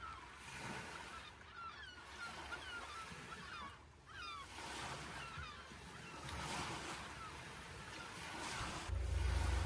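Birds calling in many short, quick chirps over a steady hiss, with a low rumble starting near the end.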